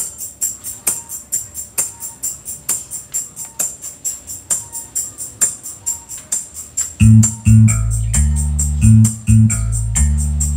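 Music played through a miniature sound system of 15-inch subwoofers and 4-inch mid-high speakers. A steady, light, high-pitched beat runs alone at first; about seven seconds in, a heavy bass line comes in on the subwoofers.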